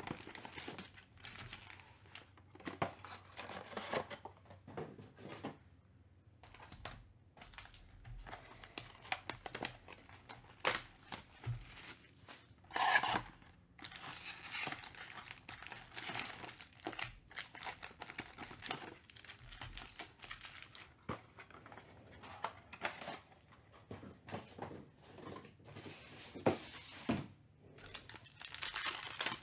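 Foil trading-card packs crinkling and rustling as they are handled, pulled out of a cardboard box and stacked, in irregular short bursts with a louder rustle about 13 seconds in.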